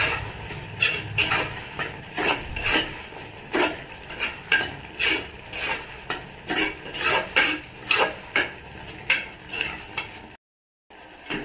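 A metal spoon stirring thick tomato masala in a pressure cooker: repeated scrapes and knocks against the pot, roughly two a second, with a brief dropout near the end.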